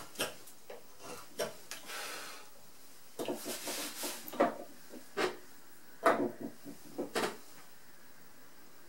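Hand carving gouge paring hard Japanese zelkova (keyaki) wood in finishing cuts: short scraping strokes and one longer rasping cut about three seconds in, with several sharp wooden knocks as tools are put down and picked up on the bench.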